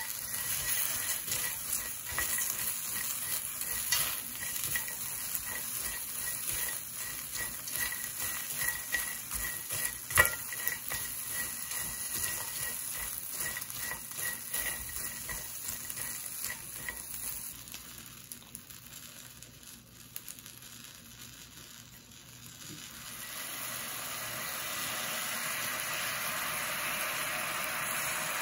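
Dried shrimp and pecans being stir-fried in a stainless steel pan: a light sizzle with the rattle and scrape of chopsticks turning the dry, crisp shrimp, and one louder clack against the pan about ten seconds in. It grows quieter for a few seconds, then a steady sizzling hiss rises near the end.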